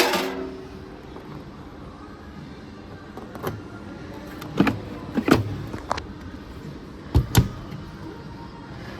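Steady background hum of a large shop, broken by a handful of sharp knocks and clicks, two of them close together about seven seconds in.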